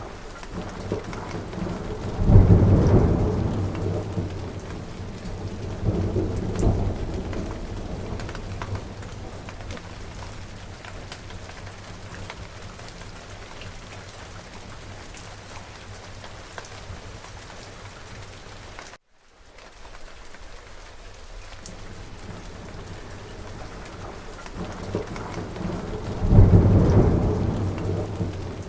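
Steady rain falling, with rolls of thunder: a loud one about two seconds in, a second a few seconds later, and another near the end. The sound cuts out completely for a moment about two-thirds of the way through.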